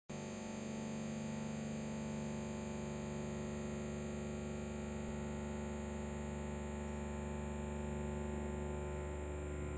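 Live chamber ensemble of cello, flute and clarinet sustaining long held notes together, a dense chord that barely changes.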